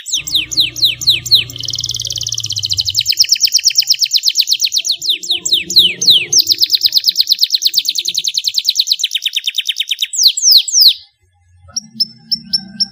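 Domestic canary singing: long runs of fast, even trills broken by loud down-slurred whistles. The song stops briefly about eleven seconds in, followed by a few separate short notes.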